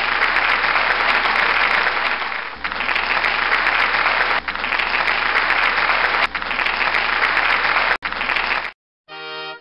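Crowd applauding, with small abrupt breaks about every two seconds. The applause stops near the end, and after a short gap music starts.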